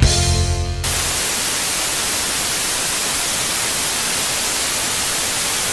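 Steady, even hiss of TV-style white-noise static, coming in as the tail of the music cuts off about a second in.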